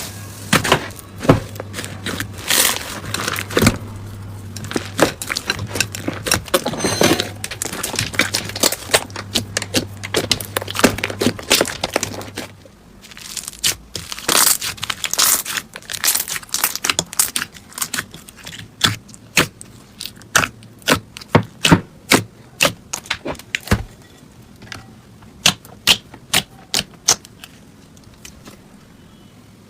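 Slime being pressed and squeezed by hand, giving a run of sharp pops and crackles. A low hum underneath stops about twelve seconds in, after which the pops come more spaced out, a few a second.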